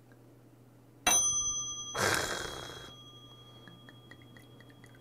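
A Korean brassware (yugi) cup struck once about a second in, ringing on with a clear bell-like tone for several seconds, then a short splash of soju poured into it.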